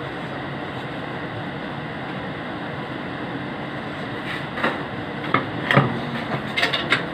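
A steady mechanical hum-like noise, then from about four seconds in a handful of sharp clicks and knocks, like tools or parts being handled.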